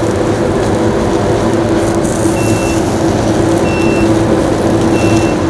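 Steady loud hum of commercial kitchen ventilation. In the second half an electronic kitchen appliance beeps three times, short high beeps about a second and a half apart.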